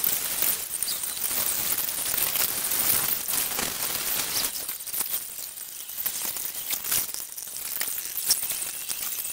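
Hand-held plastic welder working glass-fibre-reinforced polypropylene on a jet ski hull: a steady hiss with irregular crackling clicks.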